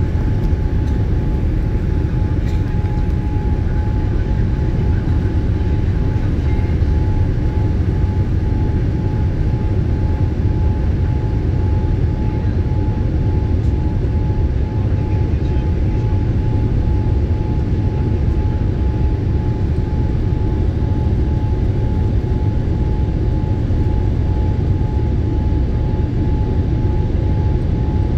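Steady airliner cabin noise: an even rumble of engines and airflow with a thin steady whine running through it.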